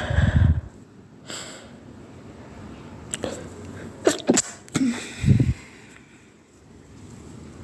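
A person sneezing with the nose pinched: two stifled sneezes, each a short muffled burst, one at the start and another about five seconds in, with quick sharp breaths leading up to the second.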